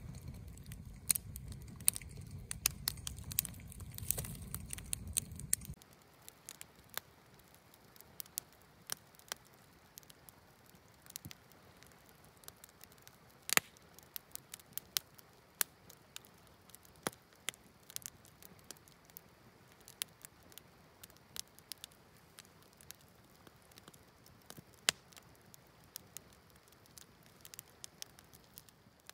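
Wood campfire crackling, with sharp irregular pops throughout and one louder pop about halfway through. A low rumble runs under the crackle for the first six seconds, then drops away.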